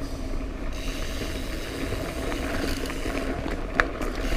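Trek Remedy 8 mountain bike rolling along a dirt trail: a steady rattle of tyres, chain and frame over the ground, with one sharp knock a little under four seconds in.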